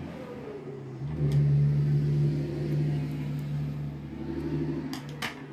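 A motor vehicle engine running with a steady low hum that swells about a second in and eases off near the end, with a few sharp clicks shortly before it fades.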